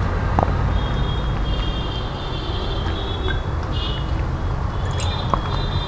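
A man gulping water from a bottle over a steady low background rumble, with a few small clicks.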